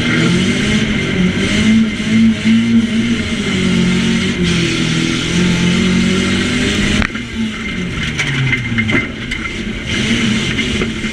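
Nissan Micra banger's engine, heard from inside the stripped cabin, revving up and down as it races. About seven seconds in there is a sharp bang, then the engine drops lower, with a few smaller knocks.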